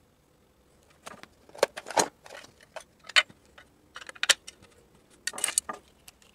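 Irregular clicks, taps and light rattles of small parts being handled, starting about a second in: the plastic chassis and servo parts of a mini RC crawler, and tools, knocking against a wooden workbench.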